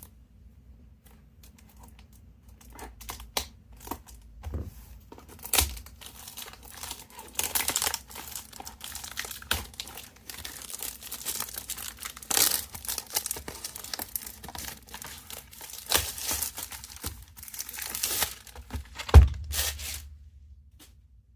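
Plastic shrink-wrap being torn and crinkled off a cardboard trading-card booster box, with irregular scratching and rustling. There is one heavy thump near the end.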